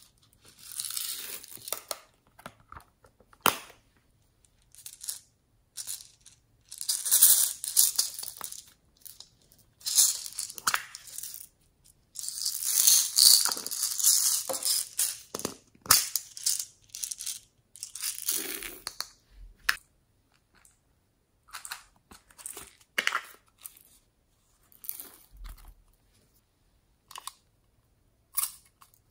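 Small plastic cases of sequins and confetti being handled, giving irregular bursts of crisp crinkling with short quiet gaps between; the longest run comes about halfway through.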